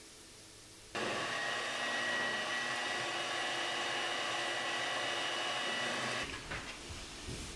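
Handheld electric mixer running with a steady whine while its beaters whisk flour into a pancake batter. It starts suddenly about a second in and stops about six seconds in.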